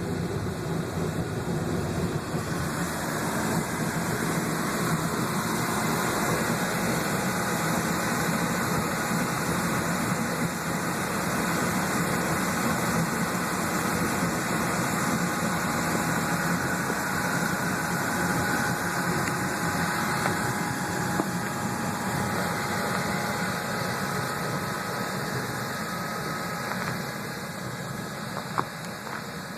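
Wood-fired evaporator boiling sugar-water sap: a steady rushing noise of the fire and the boil, with a single sharp click near the end.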